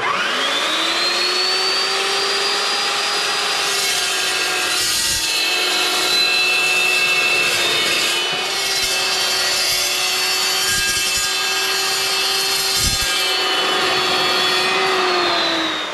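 Evolution S380CPS dry-cut metal chop saw, its carbide-tipped blade cutting through 1-inch 11-gauge square steel tubing. The motor spins up with a rising whine, runs loud and steady through the cut, and winds down near the end.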